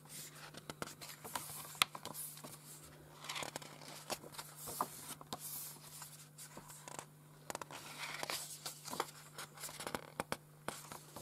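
Paper pages of a booklet being turned and handled by hand: soft rustles and slides with scattered small clicks, over a steady low hum.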